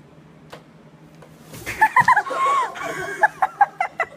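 A dull thump about one and a half seconds in, then loud, high-pitched cackling laughter in short repeated peals.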